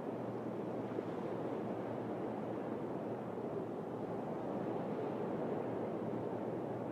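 Sea waves washing on the shore, a steady even rush of noise with no distinct breaks.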